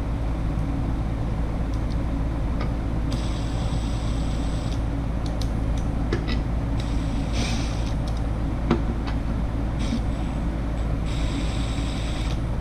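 A steady low shop hum, with a power driver whirring in two bursts of about a second and a half each, most likely running in the timing cover bolts. A shorter hiss sits between the bursts, and a few light clicks of tools and bolts come through.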